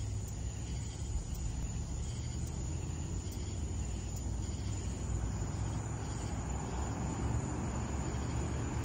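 Night insects trilling steadily in one unbroken high tone, over a steady low rumble.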